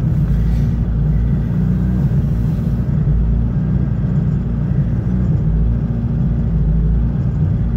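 Off-road vehicle's engine running steadily with a low rumble, heard from inside the cab.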